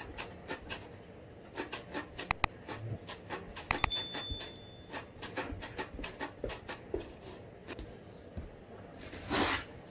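Ragdoll cat pawing and scratching at the cardboard box it sits in: a run of quick scratches and taps. A short bell ring comes about four seconds in, and a brief rustle near the end.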